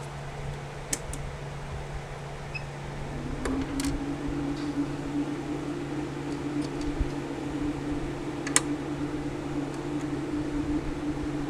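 Steady electrical hum of bench equipment. About three seconds in a second, slightly higher hum joins it and keeps running. A few light clicks sound over it.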